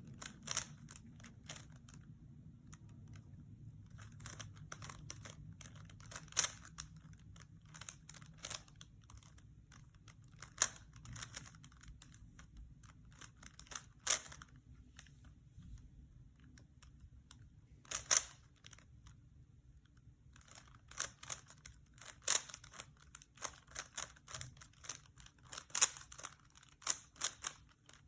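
Rubik's Cube being turned by hand: irregular plastic clicks of the layers snapping round, some single and some in quick runs of turns, the runs coming thicker near the end.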